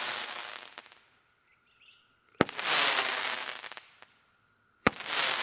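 Crackle Roman candle firing shot after shot: a sharp pop about every two and a half seconds, each followed by a crackling hiss that fades over about a second and a half.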